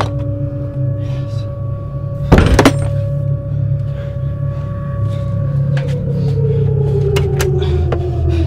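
Horror-film sound design: a low rumbling drone under two steady held tones, cut by one loud sudden hit about two and a half seconds in, after which the tones slide slowly downward in pitch.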